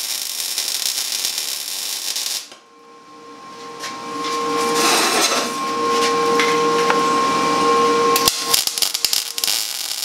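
Wire-feed (MIG) welder arc crackling and hissing, cutting off suddenly after about two and a half seconds. Near the end come sharp irregular crackles and clicks as welding starts again. Faint steady tones run under the middle stretch.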